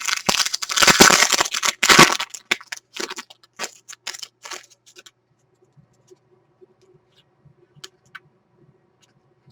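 A trading-card pack wrapper being torn open and crinkled for about two seconds, followed by lighter rustles and clicks that die away about five seconds in.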